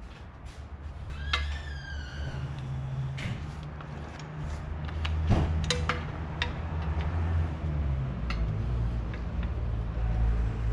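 Scattered metal clinks and knocks of tools and parts while a car's front strut is being assembled, over a steady low hum, with one brief falling squeal about a second and a half in.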